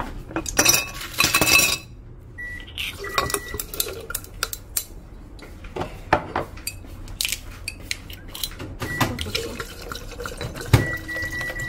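Dishes and glassware clinking and knocking, with liquid being poured, as soju is mixed into sikhye (sweet Korean rice punch). There is a louder splashy pour between about half a second and two seconds in.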